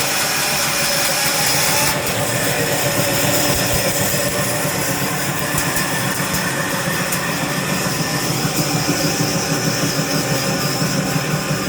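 Sawmill machinery running steadily with a loud motor drone; the higher hiss eases slightly about two seconds in.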